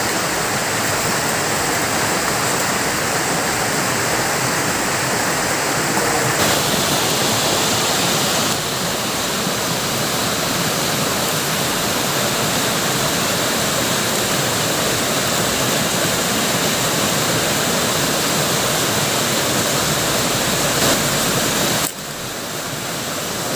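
A river rushing: a steady wash of flowing water, with a short dip in level near the end.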